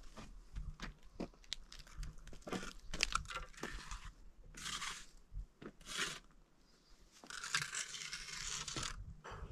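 Rough scraping and crunching of a trowel worked over gritty cement on a concrete slab, in irregular short strokes with a few sharp clicks and a brief pause near the middle.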